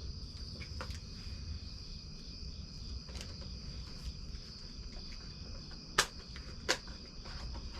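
Crickets chirping steadily in the background, with two sharp clicks near the end.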